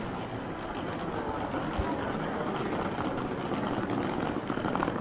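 Steady city street noise: traffic with vehicle engines running.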